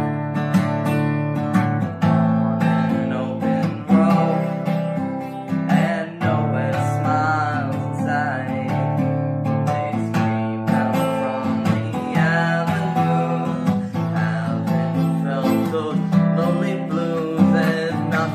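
Steel-string acoustic guitar strummed in a steady rhythm, chord after chord.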